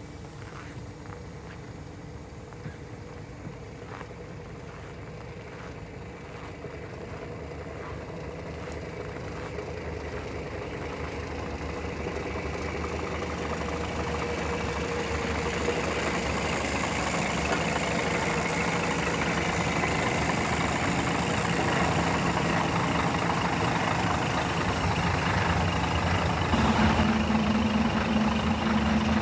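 Scania coach's rear-mounted diesel engine idling steadily, growing louder as the rear of the bus is approached; footsteps crunch in snow early on, and a steadier higher hum joins near the end.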